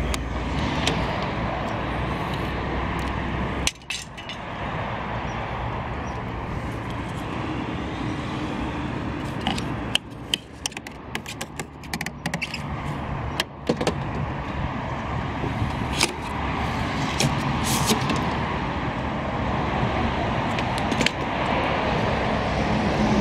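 Steady outdoor background noise with the rumble of road traffic, broken by scattered sharp clicks and knocks in the middle stretch.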